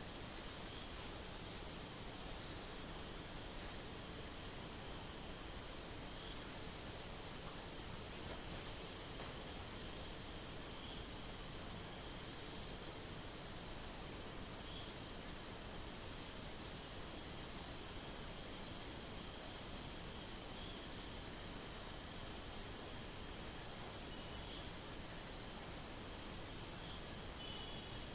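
A steady, high-pitched pulsing trill of insects. Short, faint groups of chirps join in every several seconds.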